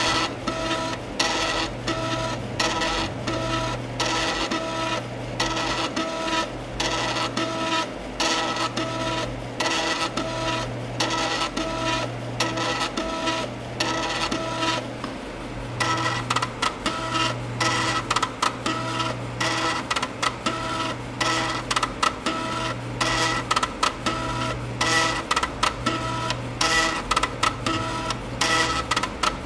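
NEC FD1231H 3.5-inch floppy disk drive at work: rapid buzzing clicks and chattering tones of the read/write head stepping back and forth, over a low hum that swells and fades about every second and a half.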